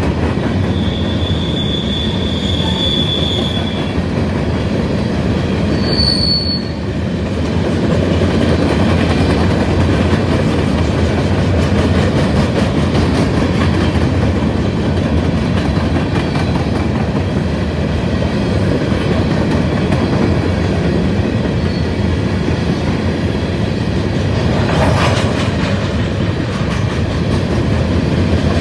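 Empty rock train freight cars rolling past, a steady rumble and clatter of wheels on rail. Brief, thin wheel squeals come near the start and again about six seconds in.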